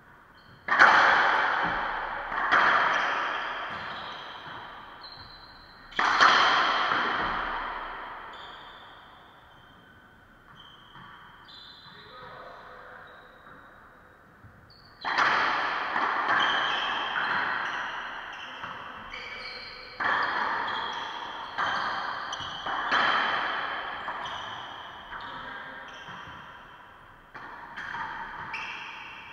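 Racquetball rally: sharp cracks of the ball off racquets and the court walls, each ringing out in the enclosed court's echo. A few hits come in the first several seconds, then a lull, then a quicker run of hits about a second apart from about halfway through.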